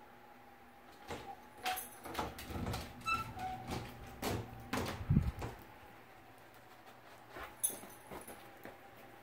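A dog moving about the furniture while hunting for hidden biscuits: scattered knocks, scrapes and rustles, bunched in the first half, with a heavier thud about five seconds in. A faint steady hum runs underneath.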